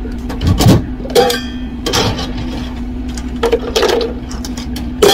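Ice cubes dropped one at a time into a clear plastic blender jar of fruit, giving several separate clinks and clatters, over a steady low hum.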